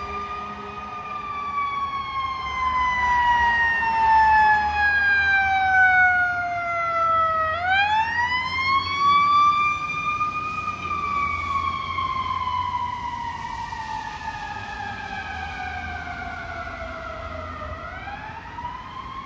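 Chicago Fire Department ambulance going by with its siren on a slow wail: the tone falls for about seven seconds and climbs back quickly, twice, over a low engine rumble. It is louder in the first half and fades toward the end.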